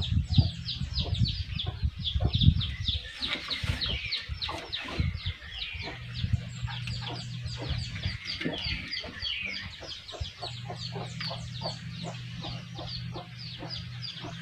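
Chickens: a continuous stream of rapid, high peeping from chicks, with lower clucking from a hen. A few low knocks sound in the first few seconds.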